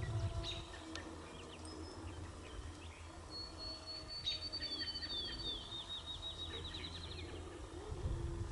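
A wild songbird singing: a few thin, high whistled notes, then a rapid trill of repeated short notes lasting about three seconds, over a low rumble.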